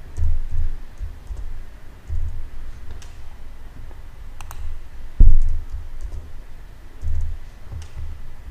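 Computer keyboard keys and mouse clicks as short entries are typed into table cells, with a few low thumps under them, the loudest about five seconds in.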